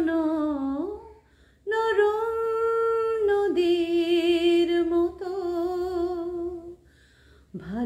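A woman singing a Bengali song unaccompanied, drawing out long held notes with short breaks for breath about a second in and again near the end.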